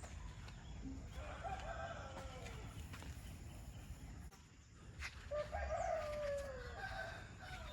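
A rooster crowing twice, each crow about two seconds long and falling in pitch at the end; the second crow is louder.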